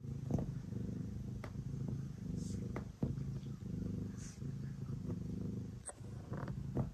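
Domestic cat purring steadily while kneading a fleece cushion, the purr swelling and dipping about once a second with its breathing. A few light clicks sound over it.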